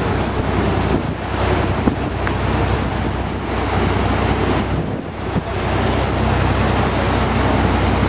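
A boat's engine running steadily at a low hum, under heavy wind noise on the microphone and the rush of water. The wind noise dips briefly about five seconds in.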